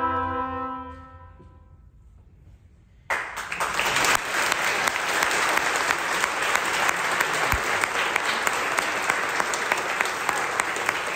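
An oboe trio's final held chord fades away in the hall's reverberation over the first second or two. After a short hush, audience applause breaks out about three seconds in and continues.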